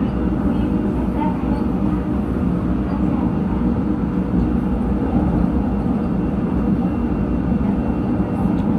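Subway train running at speed, heard from inside the car: a steady, even running noise of wheels and motors with no breaks.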